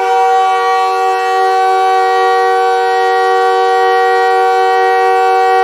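Montreal Canadiens goal horn, a Nathan K3HA three-chime air horn, sounding one long, steady, loud blast as a chord of several tones.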